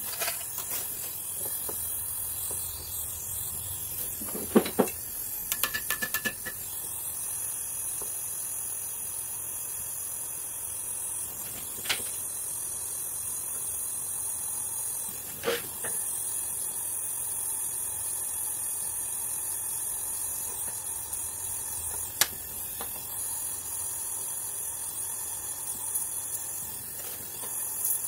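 LPG gas torch flame hissing steadily while aluminium filler rod is melted along an aluminium engine cover. A few sharp clicks break in, the loudest a little over four seconds in, with more around six seconds and single ones at about twelve, fifteen and twenty-two seconds.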